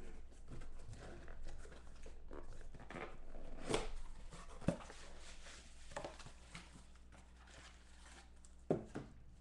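A sealed cardboard trading-card box being opened by hand: flaps scraping and tearing, cardboard rustling, with a few sharp knocks along the way.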